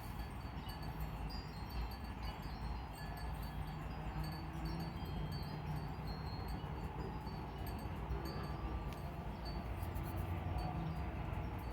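Wind chimes tinkling irregularly, short ringing notes scattered through the whole stretch, over a steady low rumble.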